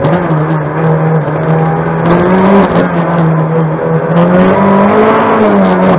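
Renault 5 GT Turbo's turbocharged 1.4-litre four-cylinder engine heard from inside the cabin, revving up and down as the car is driven hard. The pitch dips near the start, climbs about two seconds in and again about four to five seconds in, then falls near the end.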